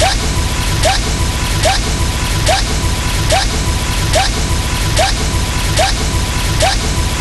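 A short sound effect looped over and over, about once every 0.8 seconds: each time a sharp, noisy crack with a brief rising chirp. Beneath it run a constant low rumble and a steady thin high tone.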